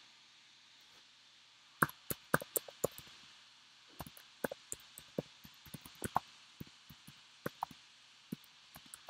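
Computer keyboard typing: a quick burst of about half a dozen keystrokes about two seconds in, then a longer, irregular run of keystrokes from about four seconds in.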